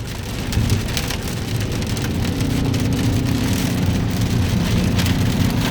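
Heavy rain pattering on a car's body and windshield, with the car's engine and road noise as a steady low hum that grows louder about half a second in.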